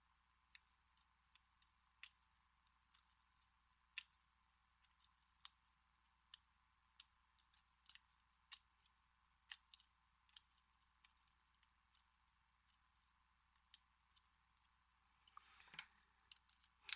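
Faint, irregular clicks of a lock pick working the pins inside an American Series 200 padlock during single pin picking, roughly one click a second.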